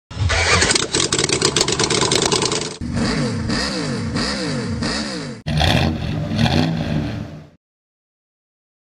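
Engine sound effect: a car engine runs roughly with a rapid clatter, then is revved again and again, the pitch rising and falling with each blip, and it cuts off suddenly about seven and a half seconds in.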